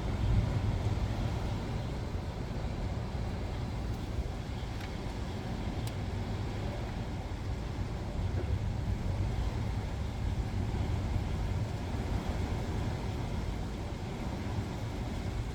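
Thunderstorm wind gusts buffeting the microphone: a steady low rumble that swells just after the start and again about eight seconds in.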